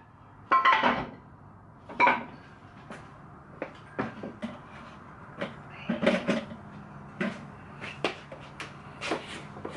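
Wooden boards and other objects being handled in a garage: a loud clatter near the start, a knock about two seconds in, then a run of sharp clicks and taps. A faint low steady hum comes in about two-thirds of the way through.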